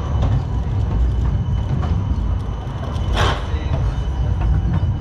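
City tram passing close by on street rails: a steady low rumble, with a short hiss about three seconds in.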